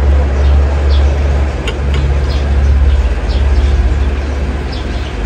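A loud, steady low rumble, with a faint hiss and a few faint short high chirps above it.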